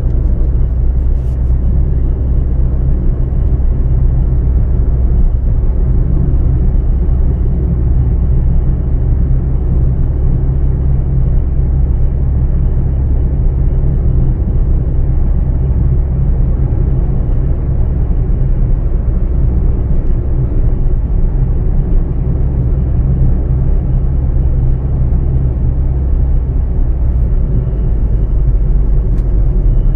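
Proton Gen-2 heard from inside the cabin while driving: a steady low road-and-engine rumble with a faint, thin high whistle running over it, the whistle whose source the owner cannot find.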